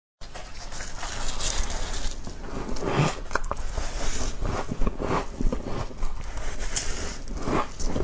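Close-up chewing of soft frost in the mouth: a continuous run of quick, crunchy bites.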